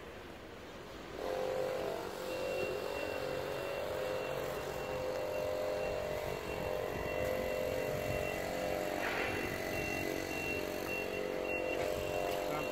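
Triumph GT6's straight-six engine running steadily at idle, getting louder about a second in.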